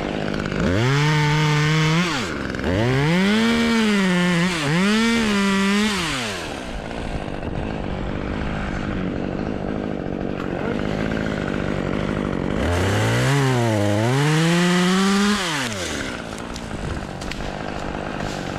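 Two-stroke chainsaw revving up and dropping back several times in the first six seconds, idling, then revving again for a couple of seconds near the middle before settling back to idle.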